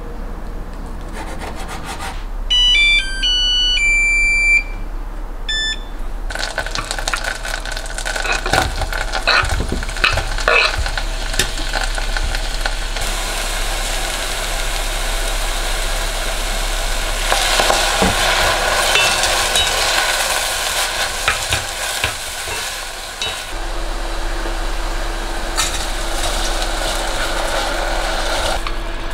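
A knife cuts on a wooden chopping board. A few short electronic beeps follow, from an induction cooktop's controls. From about six seconds in, sliced shiitake mushrooms sizzle as they stir-fry in an enamelled cast-iron pot, with the light scrapes and taps of a wooden spoon stirring them.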